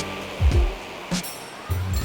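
Background electronic music with drum hits and deep bass notes that slide down in pitch.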